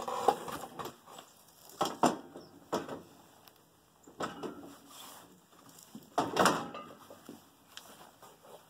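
Steel snow-plow quick hitch scraping over concrete and clunking against a garden tractor's front frame as it is set in place. A handful of separate knocks and scrapes, the loudest at the start and about six seconds in.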